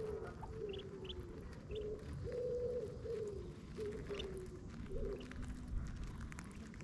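Mandarin duck hen giving a run of soft, low calls, several of them falling in pitch, while her duckling feeds beside her, with a few brief high peeps from the duckling; the calls stop about five seconds in.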